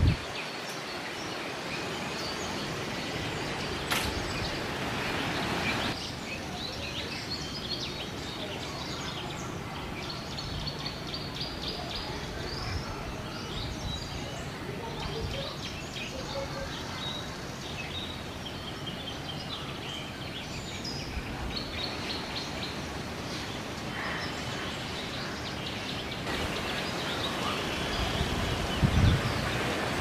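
Several small birds chirping and calling over steady outdoor background hiss. A few dull bumps near the end.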